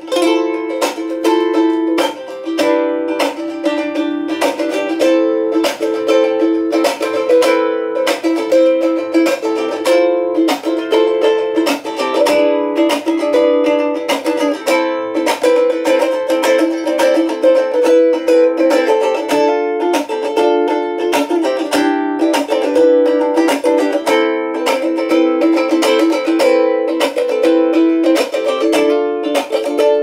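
G-Labo soprano thin-body ukulele with a spruce top and mahogany back and sides, played solo: strummed chords in a steady rhythm, with the chords changing every second or so. It rings out full and resonant for such a thin, small body.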